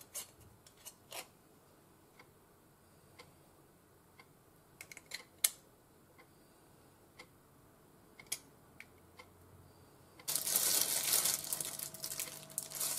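Light metallic clicks and taps of a tuna can and its pressed-in lid as the oil is drained into a frying pan, then from about ten seconds in a louder, uneven crinkling rustle as a plastic squeeze tube is handled and squeezed.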